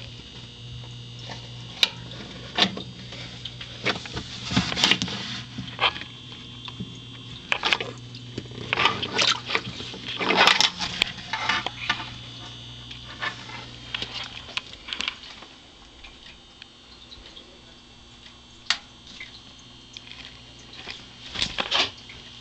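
Scattered sharp clicks, taps and rustles from handling close to a glass terrarium, thickest in the first half and sparse later, over a steady low hum.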